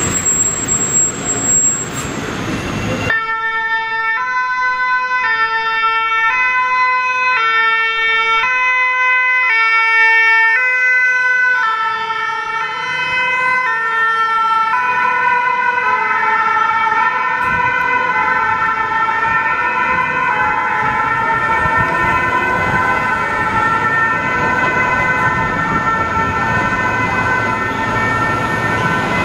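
Two-tone emergency vehicle sirens alternating between a high and a low note, each note well under a second. From about halfway a second siren overlaps the first and the notes blur together. The first few seconds hold only road traffic noise before the siren cuts in abruptly.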